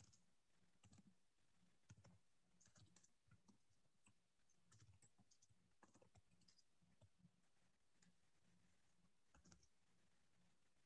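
Near silence with faint, scattered clicks.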